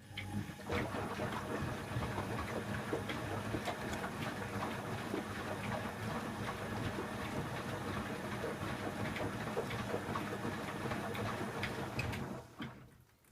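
Candy Aquamatic 1000T compact washing machine turning its empty drum in a wash-phase rotation: a steady motor hum with rattling and clicking. It starts at once and stops about twelve seconds in.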